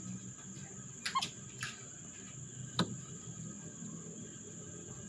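Steady high-pitched insect trill, with a few short, sharp falling chirps about one and three seconds in.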